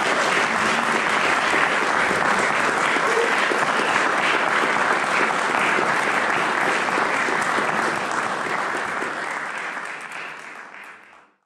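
Audience applauding steadily, fading out over the last few seconds and cutting off near the end.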